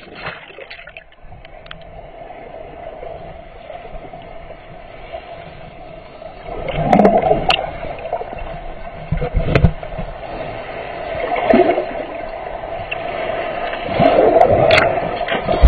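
Muffled underwater water noise picked up by a submerged camera: rushing and bubbling water, swelling in several surges from about halfway through, as a swimmer close to the camera stirs the water.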